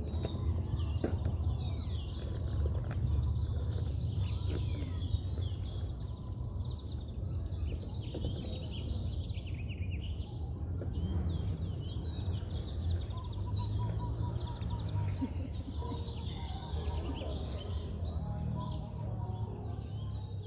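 Many birds chirping and calling, overlapping, over a steady low rumble.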